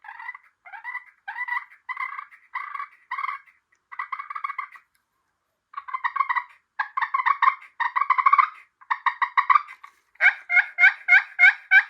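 Push-pull turkey call worked to make soft turkey purrs: a string of short, rolling, rattling purrs with brief pauses between them. About ten seconds in it changes to a fast, even run of sharper notes, about four a second.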